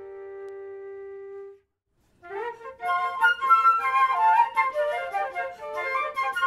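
Flute quartet holding a soft sustained chord that breaks off after about a second and a half; after a brief silence the four flutes come back loud with a fast passage of quick, short notes.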